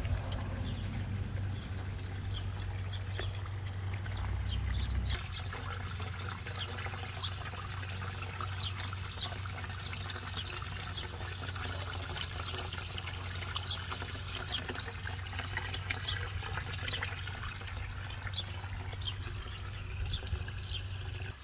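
Pond water pouring from a plastic waterfall spillway into the pond, a steady splashing trickle fed by the pump, over a steady low hum. The splashing grows sharper about five seconds in.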